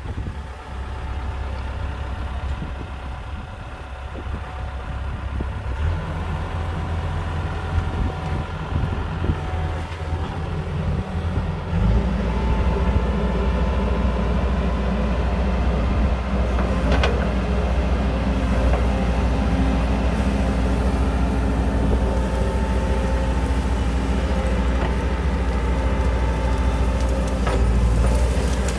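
Heavy diesel engine of earthmoving machinery running, growing louder and heavier in two steps, about six seconds in and again about twelve seconds in. A single sharp knock about halfway through.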